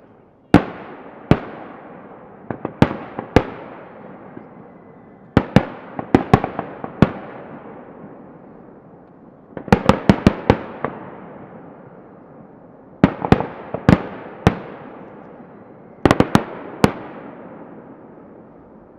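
Aerial fireworks shells bursting, heard from a distance: sharp booms in clusters of one to five every few seconds, each followed by a long echoing rumble that fades away.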